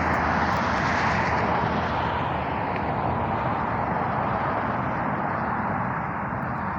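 A diesel-hauled freight train, an empty coal train, running past: a steady rush of rolling noise over a low diesel drone, slowly easing off.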